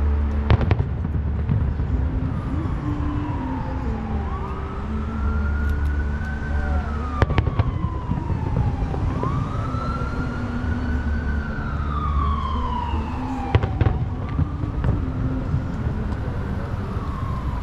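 An emergency vehicle's siren wails in three slow sweeps, each rising quickly and falling away over a few seconds. Distant fireworks bang a few times, in quick pairs.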